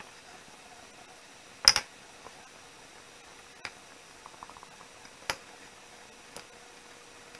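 Scattered light taps and clicks from hands working clay against a pot and work table, the loudest a sharp double click about two seconds in. A faint steady hum runs underneath.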